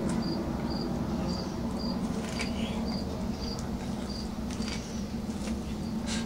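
Cat biting and chewing kernels off a corn cob, a few sharp crunches, over a cricket chirping steadily about twice a second and a steady low hum.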